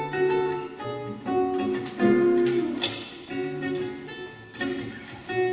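Classical guitar played solo and fingerpicked: a melody of plucked notes ringing over held bass notes, with a louder chord struck about two seconds in.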